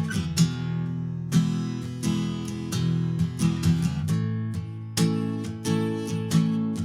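Acoustic guitar strummed chords in an instrumental passage of a song, with no singing.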